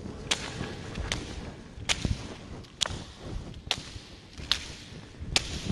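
Jump rope slapping a gym floor during side swings: a sharp slap a little more than once a second, evenly spaced.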